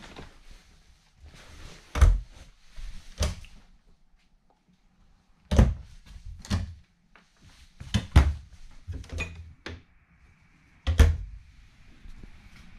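Doors and cabinets inside a travel trailer being opened and shut: a string of sharp thunks, one to three seconds apart, with handling rustle between them.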